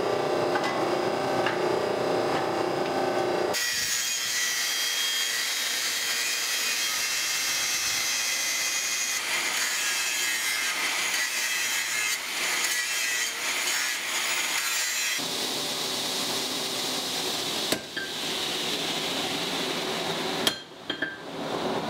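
Hydraulic forging press running for the first few seconds, then an angle grinder grinding on a forged steel blade clamped in a vise for about twelve seconds. Near the end, a couple of sharp hammer strikes on hot steel at the anvil.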